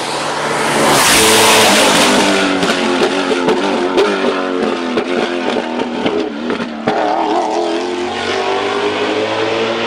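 Matech Ford GT GT1 race car's 5.5-litre 90° V8 passing close at speed, loudest about a second in. Its exhaust note then steps up and down through gear changes as it pulls away, with several sharp cracks.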